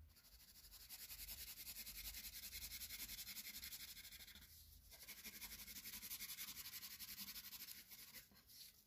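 Wax crayon shading on paper: faint, rapid back-and-forth scribbling strokes in two spells, with a short pause about halfway through.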